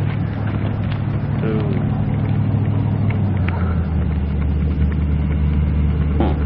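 Vehicle engine idling with a steady low hum that grows a little stronger about halfway through.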